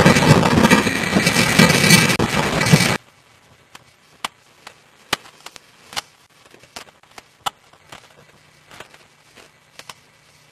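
Loud rushing noise of a night storm blowing on the microphone, which cuts off abruptly about three seconds in. After that there are only faint, scattered clicks and pops.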